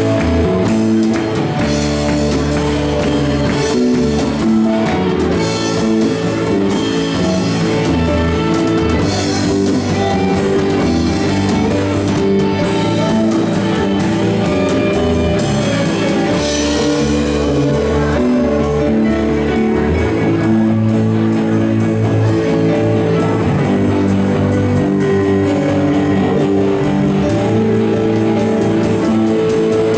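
A live band of keyboard, guitar, bass and drums playing a rock song, the guitar to the fore, continuous and steady throughout.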